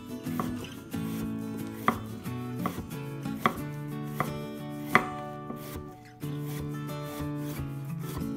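Chef's knife slicing a green plantain into rounds on a wooden cutting board: a short, crisp knock each time the blade meets the board, roughly every three-quarters of a second, the loudest about five seconds in.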